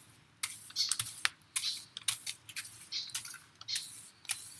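Irregular run of light clicks and rustles, a few a second, from hands handling small gardening items.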